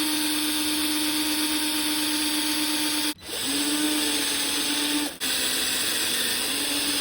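Power drill running in reverse with a left-hand drill bit, drilling into a broken-off bolt to extract it. The motor runs with a steady whine, stops sharply about three seconds in, starts again, and briefly stops once more about five seconds in.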